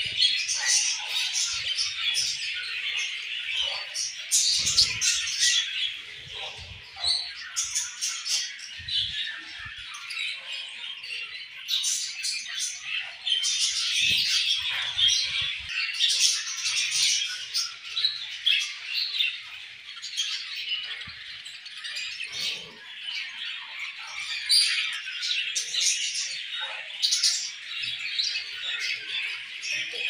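A colony of budgerigars chattering, many chirps and warbles overlapping without a break.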